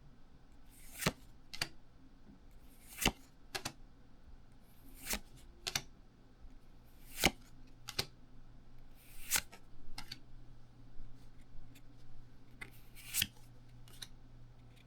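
Pokémon trading cards from a freshly opened booster pack being flipped and slid one at a time, making sharp, irregular card snaps about a second apart, with a couple of softer sliding swishes.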